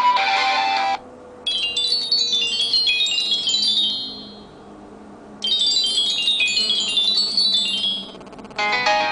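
Phone ringtone of high, bell-like chime tones tumbling in a rippling cascade, played twice about four seconds apart. Another ringtone melody ends in the first second, and a new one starts near the end.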